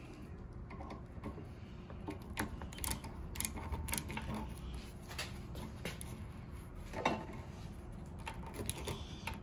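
A small hand driver turning a taped hex plug into a pressure washer pump's inlet port: faint, irregular clicks and scrapes of metal tool on fitting, with one louder click about seven seconds in.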